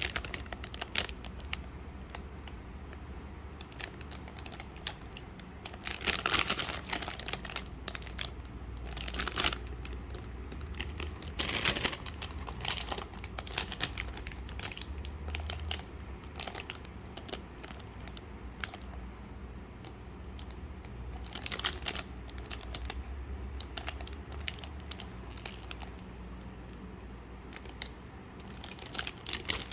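Hands handling a model-kit box and its packaging: plastic and paper crinkling and rustling, with scattered clicks and taps and a few louder rustles.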